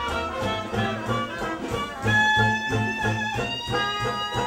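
A small swing jazz band playing at a steady beat: a plucked upright bass walks at about four notes a second under horns holding long notes.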